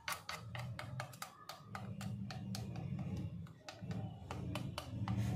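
Metal knife blade tapping and pressing against the edges of setting peanut chikki on a wooden cutting board, making a string of irregular light clicks several times a second, over a low steady hum.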